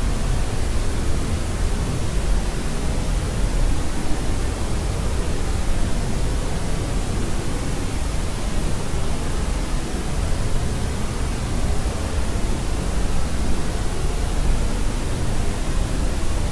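Steady pink noise, an even rushing hiss that is heavier in the low end and does not change. No baby crying is heard.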